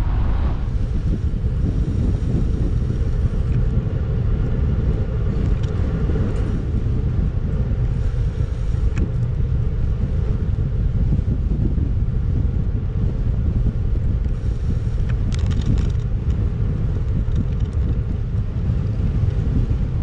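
Steady low rumble of wind buffeting a bike-mounted action camera's microphone, mixed with road buzz carried through the bicycle frame while riding into a headwind.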